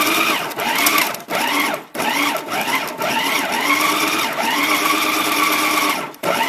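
Hamilton Beach food processor pulsing a thick cream cheese and corned beef mixture: the motor runs in bursts, each starting with a rising whine as it spins up. Two short bursts come first, then one held for about four seconds, and another starts right at the end.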